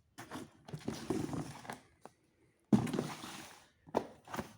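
A cardboard product box being handled: rustling and scraping, then a sudden knock a little under three seconds in as it is set down, and a couple of light taps near the end.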